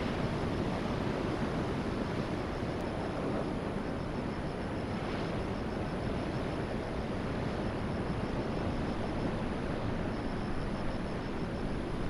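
Steady rushing noise of ocean surf breaking on a beach.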